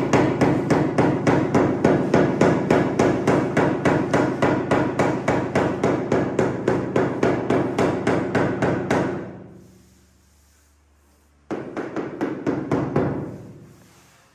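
Hammer tapping fast and evenly, about five or six strikes a second, knocking floor tile level into its mortar bed. The tapping fades out after about nine seconds, then a shorter run starts a couple of seconds later and fades again.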